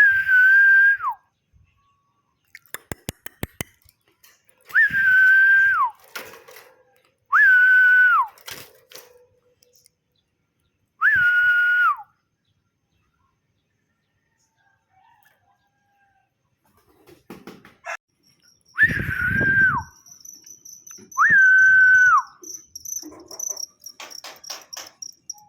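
The same whistled note, repeated six times, each about a second long. Each note is held at one pitch and then slides down at its end.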